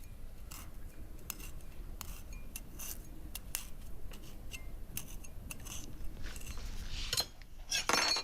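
Kitchen knife stabbing incisions into a raw leg of lamb, with irregular sharp clicks of metal on metal and a louder clatter just before the end.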